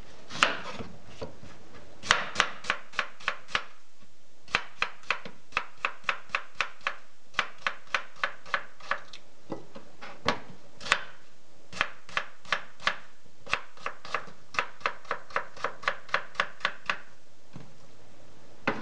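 Chef's knife chopping an onion on a plastic cutting board: a long series of sharp knocks, about three a second, in runs broken by short pauses, stopping shortly before the end.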